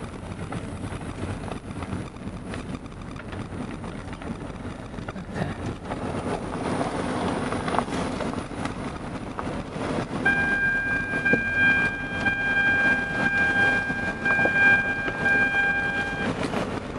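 Vehicle moving along a dirt road, heard from inside the cabin as steady road and engine rumble. About ten seconds in, a steady high-pitched tone joins for about six seconds, then cuts off.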